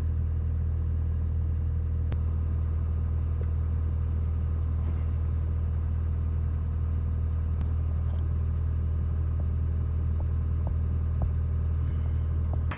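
Excavator engine running steadily under load while its hydraulic pump pushes at full pressure against the stuck bushing, with a few faint clicks. The sound cuts off abruptly near the end.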